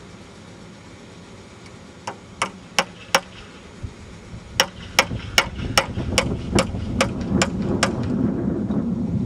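Hammer blows on a wooden fireworks mortar rack: four quick strikes about two seconds in, then after a pause nine steady strikes, about two and a half a second. A low rumble builds underneath in the second half.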